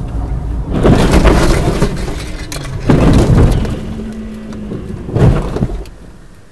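A car crashing off a snowy road, heard from inside the car: three loud impacts with crunching and scraping, about a second in, about three seconds in and about five seconds in, over a low rumble of the car.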